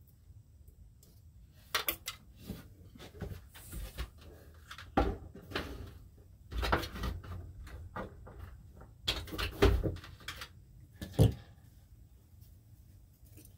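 Irregular clicks, knocks and rustles from handling fan wiring and closing lever-style wire connectors, with the loudest knocks in the second half.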